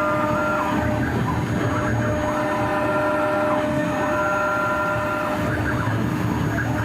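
CNC stone engraving machine running: a steady hum with higher motor whines that glide up, hold and glide back down every second or two as the axes move.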